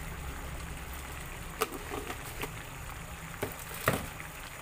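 Thickened sauce simmering and bubbling in a non-stick frying pan while a plastic spoon stirs in seasoning, clicking and knocking against the pan several times; the loudest knock comes near the end.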